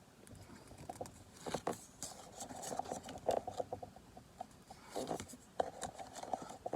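Pokémon trading cards being flipped through by hand, sliding and flicking against each other in a run of soft, papery scrapes and clicks.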